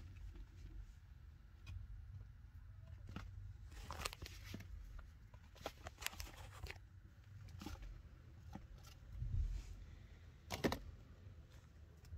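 Quiet room with a low rumble and a few short, scratchy rustles and clicks, the loudest about two-thirds of the way through.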